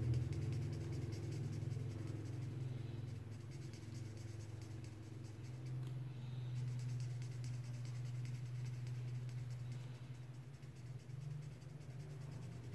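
Black felt-tip marker scratching and rubbing on paper in short, repeated strokes as it colours in an area, over a low steady hum.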